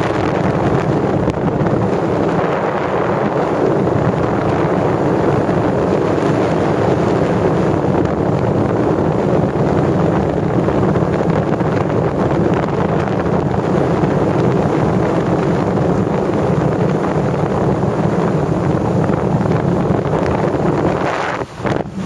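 Loud, steady rush of air over the camera microphone of a paraglider in flight, with one brief dip near the end.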